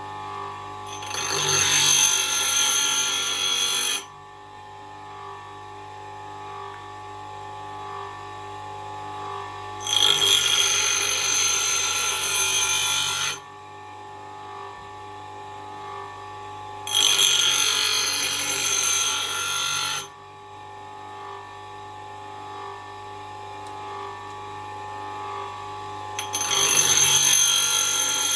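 Axe blade being sharpened on a power grinder: the steel goes against the spinning wheel in four passes of about three seconds each, a bright high-pitched grinding that stops sharply each time, over the grinder's steady running hum.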